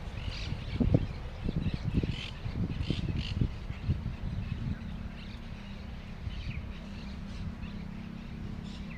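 Small birds chirping in short, scattered calls over a steady low rumble, with a run of low thumps in the first half.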